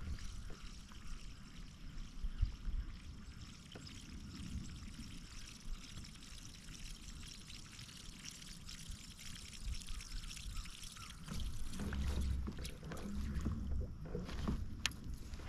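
Water trickling and splashing against a moving kayak, with scattered light clicks; a low rumble joins in near the end.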